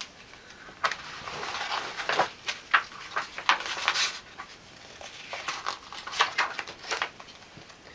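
Pages of a large picture book being opened and turned by hand: a run of papery rustles and light taps over several seconds.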